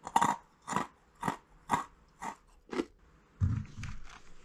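Crunchy CRATZ edamame snack bites being chewed close to the mouth: six crisp crunches, about two a second. Near the end there is a low thump and rustling of plastic packaging.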